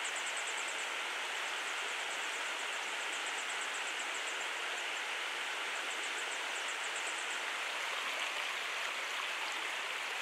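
River water rushing steadily. Over it come three short runs of rapid, very high ticking calls from a begging grey wagtail fledgling.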